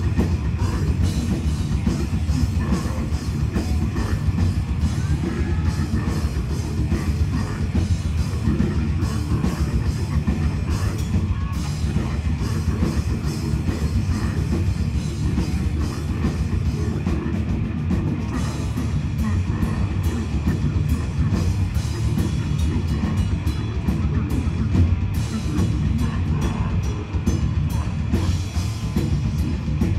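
Heavy metal band playing live and loud: distorted electric guitars, bass and a drum kit played fast and hard.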